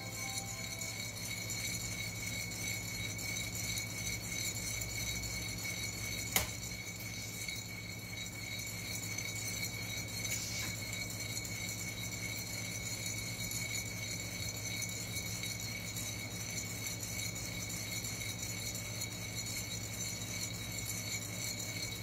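Coffee beans rattling and shaking inside a ceramic hand roaster over a gas burner, at the orange/tan stage of the roast, with a steady hum and hiss underneath. There is a single sharp click about six seconds in.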